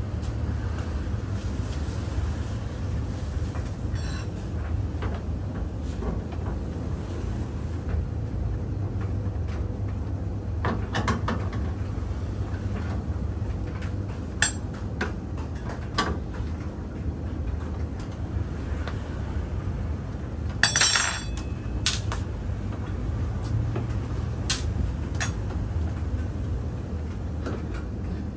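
Scattered metal clicks and clinks from a hand tool and sheet-metal parts on a commercial clothes dryer whose front panel is off, with a short louder clatter about two-thirds of the way through, over a steady low hum.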